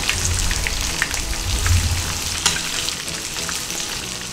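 Coated chicken pieces shallow-frying in oil in a frying pan: a steady sizzle dotted with small crackles, with a low hum underneath that stops about two and a half seconds in.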